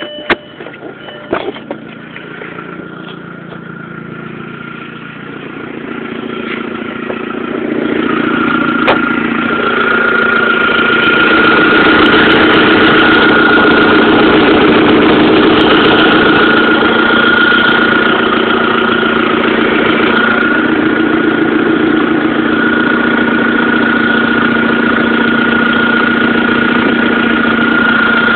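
Audi A4 1.8T turbocharged four-cylinder engine idling with an exhaust leak, which the owner takes for a leaking exhaust manifold. A few sharp clicks in the first two seconds; the engine sound grows louder over about the first ten seconds, then holds steady.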